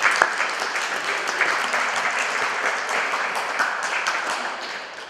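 Audience clapping, breaking out suddenly and dying away near the end.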